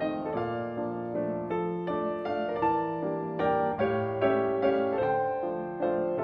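Grand piano played solo: a melody of notes struck a few times a second over held bass notes.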